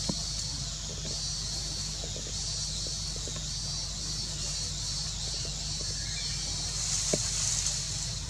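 A steady high-pitched insect chorus with a chirp repeating about twice a second, over a steady low hum. Soft rustles of animals moving on dry leaves, with a sharp tap about seven seconds in.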